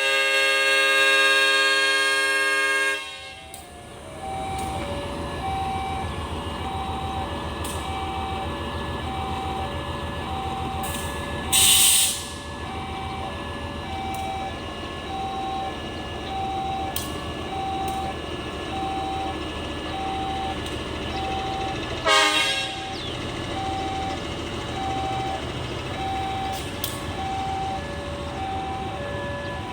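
A train horn blows for about three seconds. After it, a train engine rumbles steadily under an alternating two-tone electronic signal that repeats about once a second. A short hiss sounds near the middle, and a sharp burst of noise comes about two-thirds of the way through.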